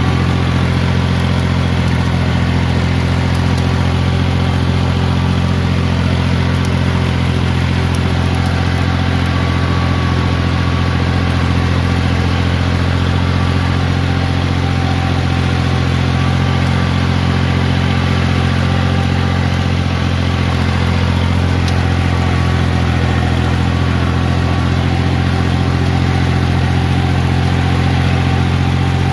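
Diesel engine of a xe cày farm truck running steadily, a constant low drone with no change in engine speed.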